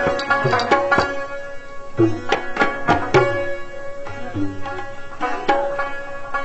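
Instrumental music: tabla strokes with a plucked string instrument over a steady held note.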